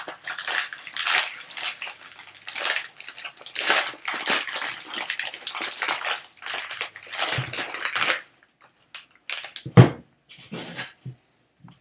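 Foil trading-card pack wrapper crinkling and tearing as it is ripped open and the cards are pulled out, a dense irregular crackle for about eight seconds. Then a few soft handling sounds, with a single thump near the end.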